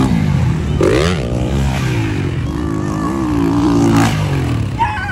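Dirt bike engine running close by and revving up and down, with a quick rise in revs about a second in.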